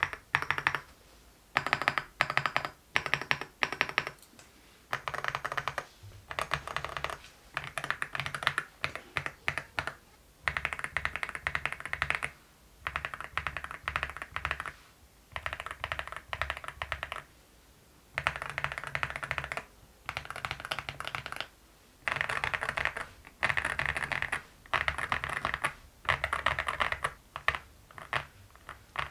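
Aula F75 mechanical keyboard with Leobog Reaper switches and MOA-profile keycaps being typed on. First come separate keystrokes, as when the large stabilized keys are pressed one at a time, then bursts of rapid typing, each one to two seconds long with short pauses between.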